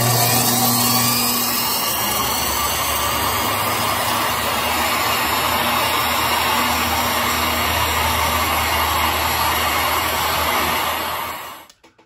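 Treadmill DC motor switched on suddenly through an SCR voltage controller set to about two-thirds, spinning up with a rising whine over the first second or two, then running steadily with a low hum until it stops near the end.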